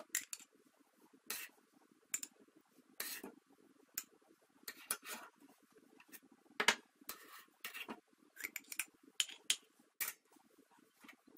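Metal spoon clinking against a stainless steel pot and glass jars as whole figs in syrup are spooned out: a dozen or so scattered light clicks and taps.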